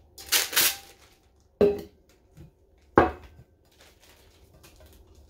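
Glitter-coated adhesive vinyl sheet peeled off a stainless steel tumbler with a short crackling rustle, followed by two sharp knocks on the countertop as things are set down, the first with a brief metallic ring.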